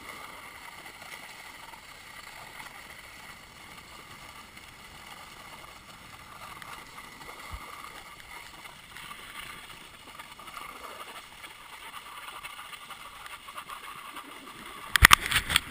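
Steady hiss of sliding downhill over groomed snow, heard on a GoPro. Near the end comes a run of loud, sharp clattering knocks as the run reaches rough, chopped-up snow.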